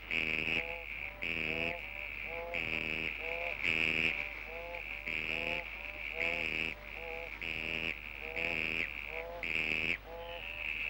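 Frog chorus: rhythmic, pitched croaking calls repeating about once a second, each with a shrill higher note alongside. A steady low electrical hum underneath.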